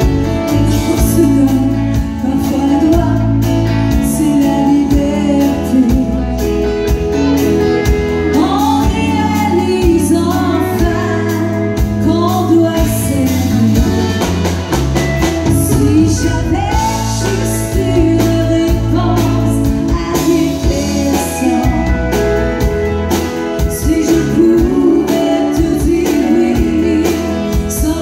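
A woman singing a country song live into a microphone, accompanied by her own strummed acoustic guitar.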